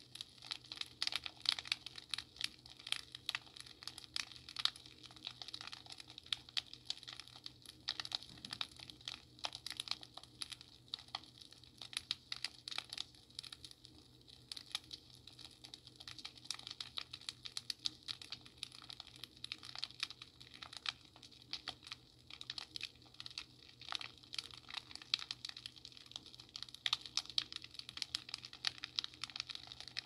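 Fireplace crackling: a dense, irregular run of small snaps and pops, over a faint steady low hum.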